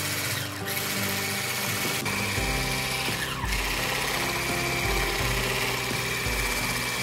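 Electric whisk beating eggs and sugar in a plastic bowl: a steady motor whir with a hiss, under background music.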